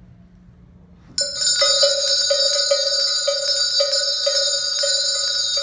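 Several small brass handbells rung together. They start suddenly about a second in and keep up a bright ringing, with clapper strikes about twice a second.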